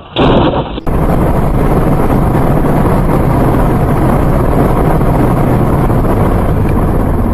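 A brief loud burst at the very start, then steady wind and road noise inside a vehicle travelling at speed on a highway.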